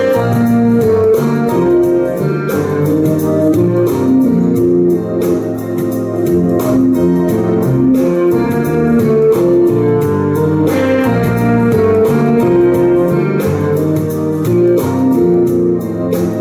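Instrumental break of a pop song played on keyboards with an organ-like sound over a steady beat and bass line; no vocals.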